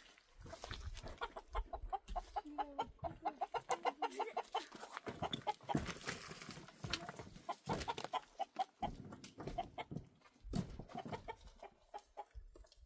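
Chickens clucking in quick runs of short repeated notes, with a few sharp knocks and thumps among them.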